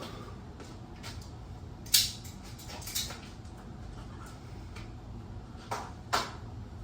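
A few short, sharp knocks or clicks, the loudest about two seconds in and three more spread through the rest, over a low steady hum.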